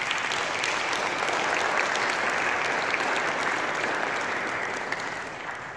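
Small congregation clapping, a dense patter of many hands that holds steady and dies away near the end.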